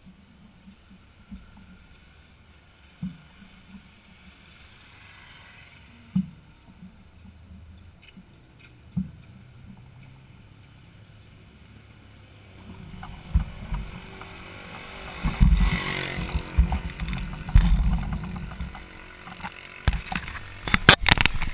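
Mountain bike rolling along a concrete sidewalk, heard through a bike-mounted action camera: a single soft knock every few seconds at first, then from about halfway louder rumbling, jolting and wind buffeting on the microphone. Near the end comes a quick run of sharp clicks and knocks as the camera is turned round by hand.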